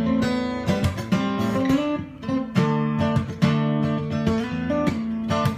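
Acoustic guitar being strummed, a chord pattern with even strokes, briefly dropping away about two seconds in.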